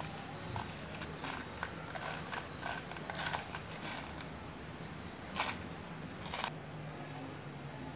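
Small parts rattling and clicking in a plastic tub as hands rummage through it: a run of short clicks and rustles, with a few louder ones about five and a half and six and a half seconds in.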